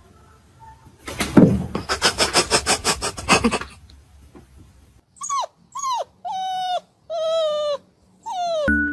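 A dog making a quick run of rhythmic huffs, then five short whining cries, each dropping in pitch.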